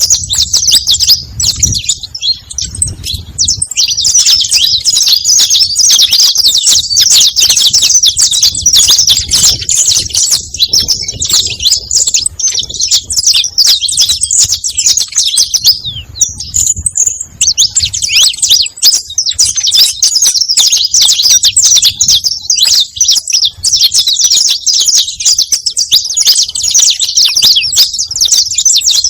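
Saffron finch (canário-da-terra) singing without letup: a loud, fast run of high chirps and trills, with a short pause just past halfway.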